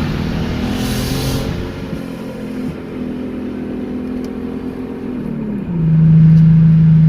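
Infiniti sedan's V6 engine running at steady revs. A little over five seconds in, its pitch drops and the sound gets louder, then holds steady.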